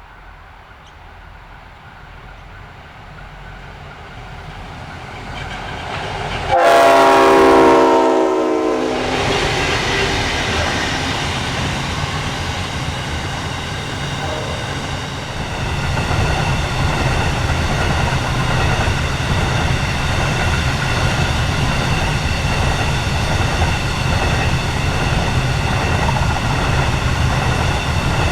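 Freight train approaching behind EMD diesel-electric locomotives: the engines' rumble grows louder, then a single multi-note horn blast lasts about two and a half seconds. The locomotives then pass close, their engines running loud and steady under power, growing louder again halfway through.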